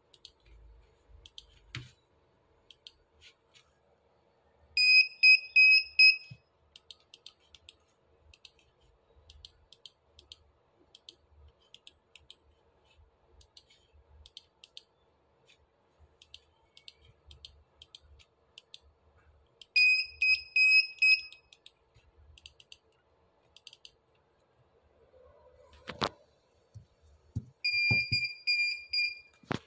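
Buzzer on a Dahua NVR4108HS network video recorder circuit board sounding three bursts of rapid, high beeps. Each burst lasts about a second and a half, and the bursts are spread several seconds apart. Faint clicking runs between them, and a single knock comes shortly before the last burst.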